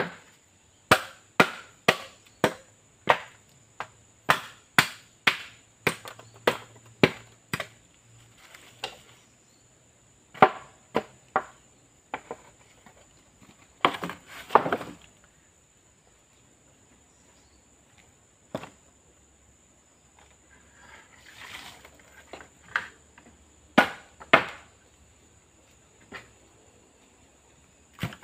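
A hand blade chopping at a split bamboo pole to knock out the nodes, each stroke a sharp woody crack. The strokes come about two a second for the first seven seconds, then in scattered twos and threes with pauses between.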